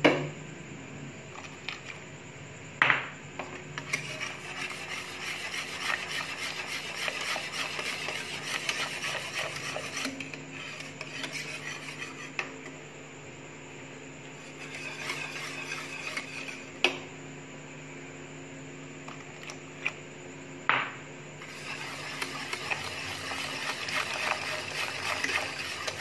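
Metal wire whisk stirring milk and custard in an aluminium pot, its wires scraping against the pot in long spells with quieter pauses between. A few sharp clinks of the whisk against the pot, four in all, stand out.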